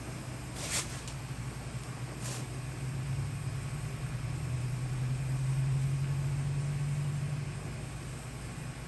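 Brazing torch flame burning steadily with a low rumble that swells about halfway through and eases near the end, with two short hissing bursts in the first few seconds.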